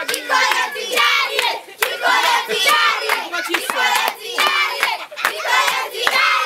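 A group of children clapping their hands over and over while singing together in loud voices.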